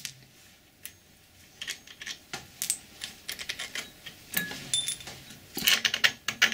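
Small metal clicks and clinks from a Colchester lathe's 120-tooth change gear being worked off its stud by hand, the nut and gear knocking against the stud and gear train. The taps are few at first and come thicker after about four seconds, some ringing briefly.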